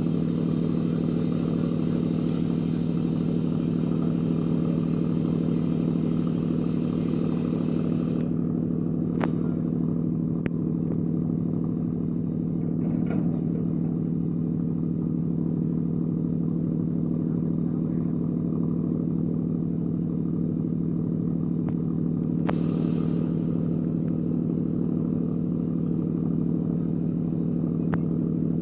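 Ship's anchor windlass machinery running with a steady, even hum while heaving up the anchor, with a few isolated sharp clicks. A higher hiss in the background cuts off about eight seconds in.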